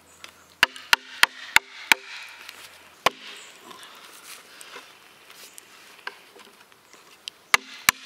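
Knocks on an axe head and a yellow splitting wedge set in a basswood log, driving them along the grain to split it. There are five quick blows about three a second, each with a short ringing note. One more blow comes about three seconds in and two more near the end.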